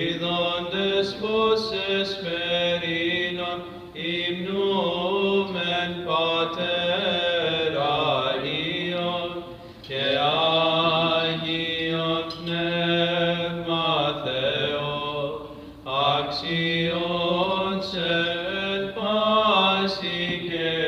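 Orthodox liturgical chant at Vespers: voices sing a melody in phrases of a few seconds over a low note held steady beneath it, the ison drone of Byzantine chant. There are short breaths between phrases.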